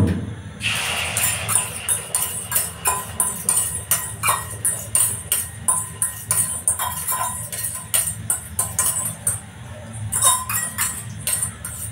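Background music with a tambourine-like beat of about two to three strikes a second. Under it, beaten egg hisses and sizzles as it is poured into hot oil in an iron kadai, the sizzle starting about half a second in.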